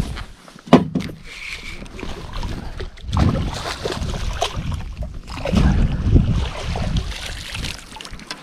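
Hooked kokanee salmon splashing at the water's surface as it is played up to the dock and netted, with wind buffeting the microphone. A single sharp knock comes about a second in.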